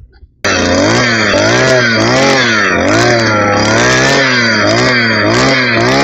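Petrol earth auger's small two-stroke engine running hard while boring a planting hole in soil, its speed rising and falling over and over as the bit bites. It starts suddenly about half a second in.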